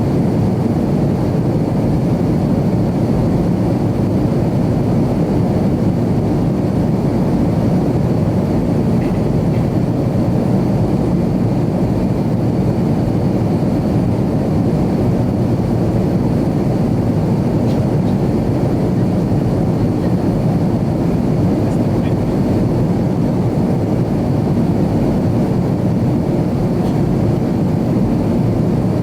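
Steady cabin noise of an Avro RJ100 airliner in flight: the drone of its four turbofan engines and the rush of air over the fuselage, heard from inside the cabin, with a faint steady high whine.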